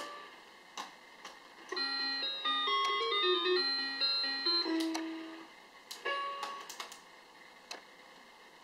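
Toy spaceship playing a short electronic beeping tune through its small speaker, a quick run of clean stepped notes ending on a lower held note. Sharp plastic clicks come before and after it, from buttons being pressed or the toy being handled.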